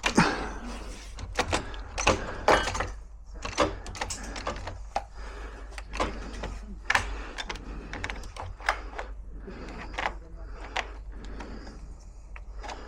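Irregular metal clicks and knocks of lock parts and tools being handled as a door lock is put back together.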